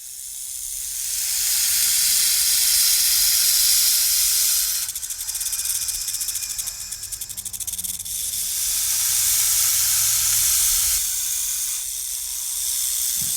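Rushing hiss that swells and fades twice, with a fast fluttering texture in the middle.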